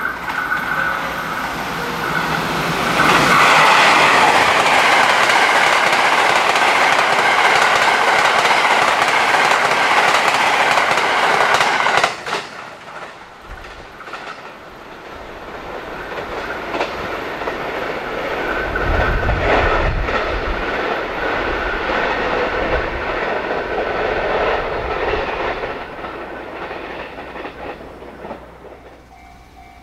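JR West 681/683-series limited express electric trains running past at speed on rails. The first pass-by is loud and cuts off abruptly about twelve seconds in. A second train then swells with a deep rumble and fades away.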